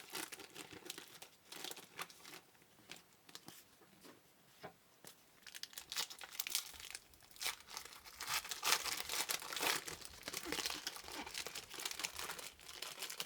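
Trading card pack wrappers being torn open and crinkled by hand in irregular rustles, sparse at first and thicker in the second half.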